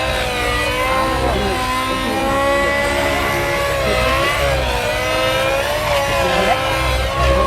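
Radio-controlled helicopter flying, its rotor and motor whine wavering up and down in pitch as it manoeuvres, over a pulsing low rotor rumble.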